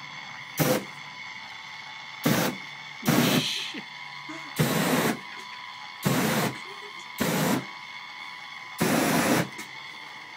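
Seven short whooshing bursts of flame from an aerosol spray can lit as a makeshift flamethrower, each lasting well under a second and coming every one to two seconds.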